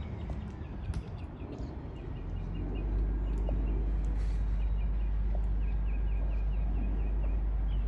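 A bird chirping in a quick, repeated series of short notes from about three seconds in, over a steady low rumble that swells at the same time.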